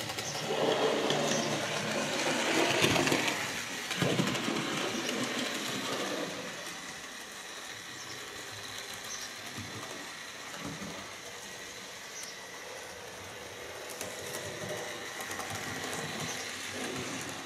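Digital model railway locomotives running round the track: small electric motors whirring and wheels rattling on the rails. Louder for the first six seconds or so, then steadier and a little quieter.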